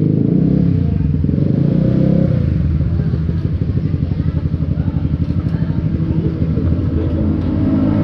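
Motorcycle engine running at low revs, with its firing pulses heard as a rapid throb through the middle stretch; the note smooths out again near the end.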